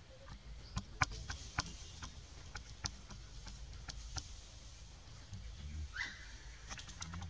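Scattered sharp clicks and crackles of dry leaf litter as monkeys move about, with one brief high squeak from a monkey about six seconds in.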